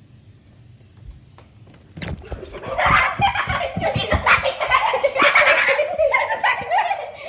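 Loud, excited laughter that breaks out about two seconds in and carries on, with a series of low thumps under it from running steps or the phone being handled.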